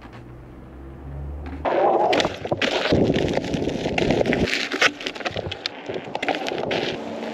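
Electric unicycle riding over rough ground: dense crackling and crunching with many sharp clicks from the tyre on gravel. It starts about a second and a half in, after a low hum.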